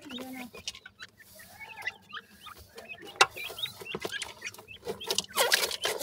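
Young grey francolins giving many short chirps and soft clucks, busier near the end, over scratchy rustling and clicks of dry soil as they scratch and dust-bathe.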